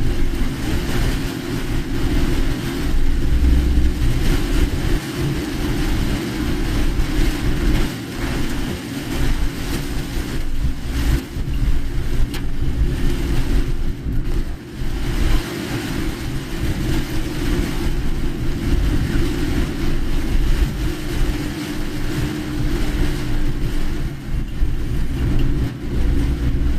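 Inside a car driving in heavy typhoon rain: a steady low rumble of engine and tyres on a wet road, with a hiss of rain and spray over it.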